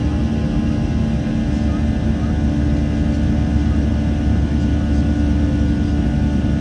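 Steady cabin noise inside a Boeing 737-700, its CFM56-7B engines droning with a constant deep rumble and steady hum tones, unchanging throughout.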